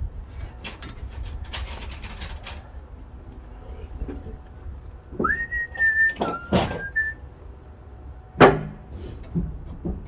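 A person whistles a few short notes, a rising note and then a brief dip and return, about halfway through. Short metallic clicks and knocks come early on. A single sharp knock near the end is the loudest sound.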